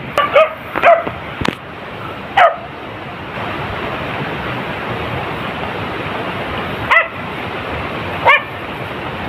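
Beagle-cross hunting dog giving short, high yelping barks, several in the first couple of seconds and two more near the end, over steady wind noise on the microphone.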